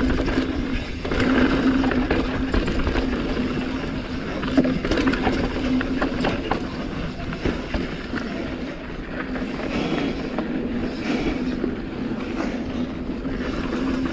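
Mountain bike riding fast down a dirt singletrack: wind on the camera microphone, tyre noise and many short rattles and knocks from the bike over bumps, with a steady low hum underneath.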